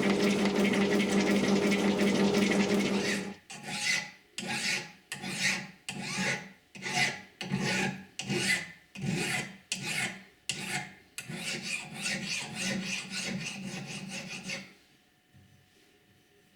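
Hand filing on metal: steady scraping at first, then separate back-and-forth file strokes about one to two a second that run closer together near the end and stop sharply a couple of seconds before the end.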